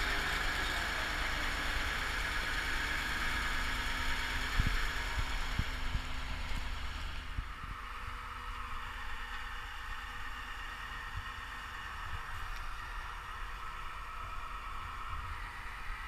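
Mobile crane's engine running steadily, its higher part dropping away to a quieter idle about seven seconds in. Two short knocks come about four and a half and five and a half seconds in.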